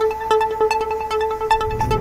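TV channel ident music: a quick run of short plucked notes over a held tone, with fuller theme music swelling in near the end.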